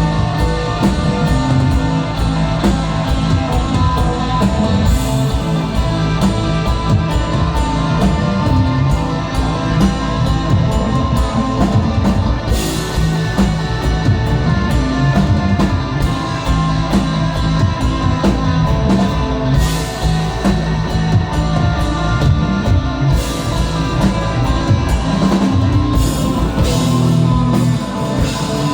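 Rock band playing live and loud: electric guitar over drum kit and bass, with no singing.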